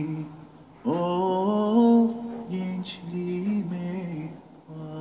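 A lone voice singing a Turkish folk song (türkü), unaccompanied, in long gliding held notes between the lyric lines. There are three phrases, and the one about a second in is the loudest.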